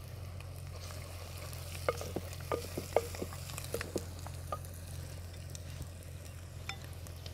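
Wooden spoon stirring a frying onion masala in a clay handi, with a faint steady sizzle. The spoon knocks lightly against the clay pot several times between about two and four and a half seconds in.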